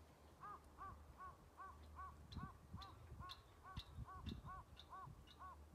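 A bird calling faintly in a rapid, even series of about a dozen short, identical notes, which stops just before the end.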